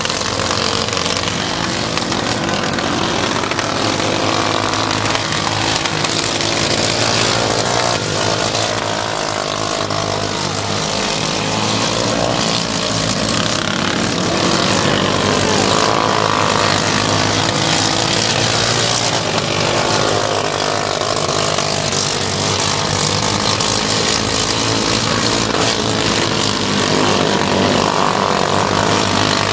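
Engines of several modified dwarf race cars running around a small dirt oval, a continuous engine note that rises and falls as the cars lap.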